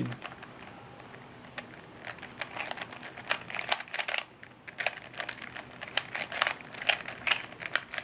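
Plastic 3x3 Rubik's cube being turned quickly by hand: its layers click and clack in fast, irregular runs, beginning about a second and a half in.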